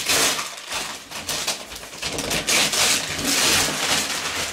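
Gift wrapping paper being torn and crumpled off a parcel: a series of loud, irregular ripping and rustling bursts.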